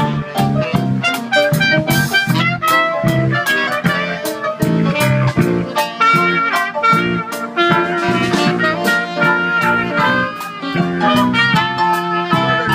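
Live jazz band playing, with saxophone and trumpet carrying the tune over a drum kit keeping a steady beat, with electric guitar and keyboard behind.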